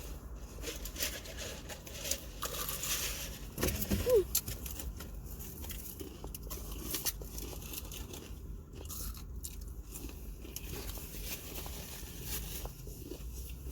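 Close-miked eating of crunchy fried fast food: bites, crunching and chewing, with short crackles all through.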